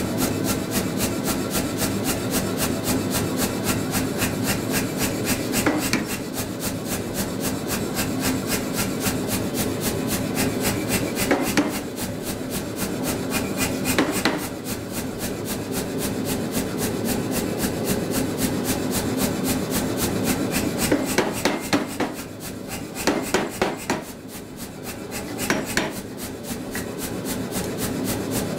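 Say-Mak air power hammer running, its motor humming steadily while the ram strikes hot steel between flat dies in a rapid, even rhythm of several blows a second. The blows ease off and grow quieter for a few seconds about three quarters through.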